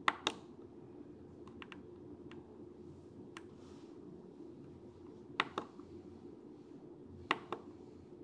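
Push-button rotary knob on a servo tester's program box clicking as it is pressed and turned through the menu: a few short, light clicks, mostly in pairs, over a faint steady hum.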